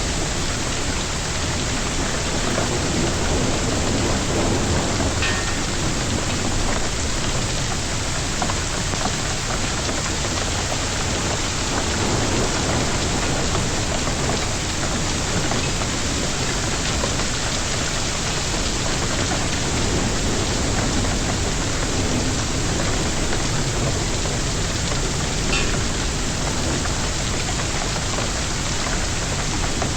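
Hailstorm: hail and rain beating down steadily, a dense even wash of noise, with a few sharper ticks of single stones striking, about 5 seconds in and again near the end.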